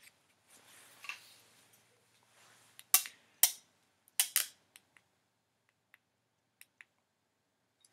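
Mactronic Phantom headlamp clicking as it is handled on the forehead and switched on: two pairs of sharp clicks about three and four seconds in, then a few faint ticks, after soft rustling of the strap.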